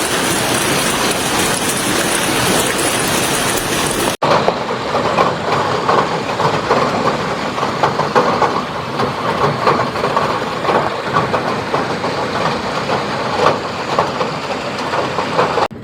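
Hailstorm: hail and rain pelting down in a dense, steady hiss. About four seconds in there is an abrupt cut to a second recording in which hailstones clatter on a hard surface in a dense, irregular stream of hits.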